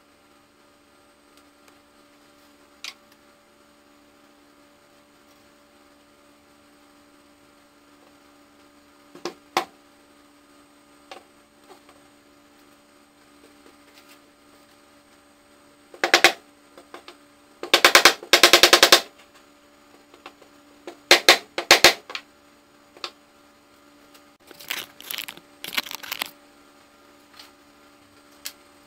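Several bursts of rapid, sharp wooden knocking and rattling as CNC-cut wooden table-leg pieces are fitted and tapped together into their joints. A few single knocks come first, and a steady low hum runs underneath.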